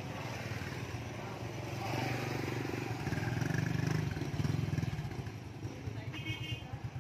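Motorbike engines running close by as the bikes edge past at walking pace, loudest about three to five seconds in. A short high beep sounds near the end.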